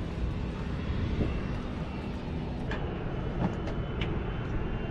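Steady low rumble of outdoor flight-line noise, with a few sharp knocks in the second half from boots on the fighter's metal boarding ladder.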